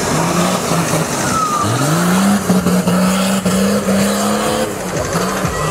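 Nissan Patrol 4x4's engine working hard as it climbs a steep muddy slope. Its note rises sharply about a second and a half in and is held high under load, dipping briefly near the end before picking up again.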